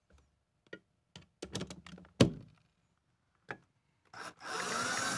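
A few light clicks and knocks of the screw and bracket being handled, the loudest about two seconds in; then, about four seconds in, a power drill starts driving the screw through the shelf bracket into the hollow wall anchor, its motor running with a steady whine.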